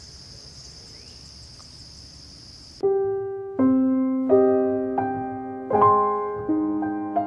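A steady, high insect trill that cuts off suddenly about three seconds in, as slow solo piano music begins. The piano plays single notes, roughly one every three-quarters of a second, each left to ring and fade; the piano is the louder sound.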